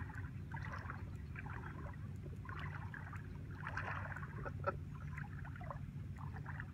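Small splashes and water lapping, from a kayak on calm water, over a steady low hum.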